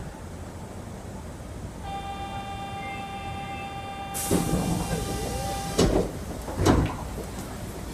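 Osaka Municipal Subway 70 series linear-motor train braking to a stop. A steady multi-tone inverter whine sets in about two seconds in and cuts off near the middle as the train halts. A sudden hiss of air comes just before it ends, followed by two loud knocks.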